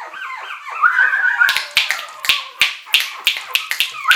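A chihuahua puppy's short high whimpers at first, then a run of sharp finger snaps or clicks, about three a second, with a thin whistled tone: a person calling for the puppy's attention.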